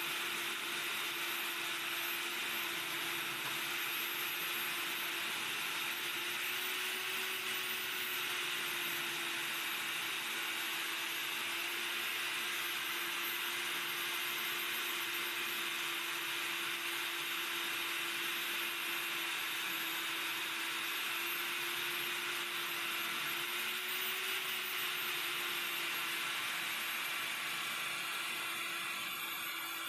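Wet diamond core drill on a rig stand running steadily as its core bit cuts into a wall: a constant motor hum under a grinding hiss, with a faint high whine. The pitch lifts briefly twice.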